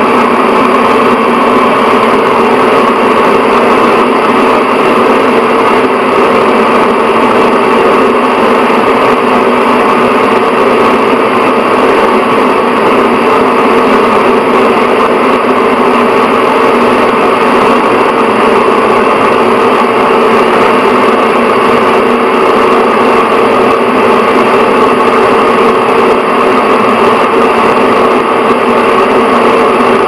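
Bathroom exhaust fan running steadily: an even rush of air with a constant hum at a few fixed pitches, unchanging throughout.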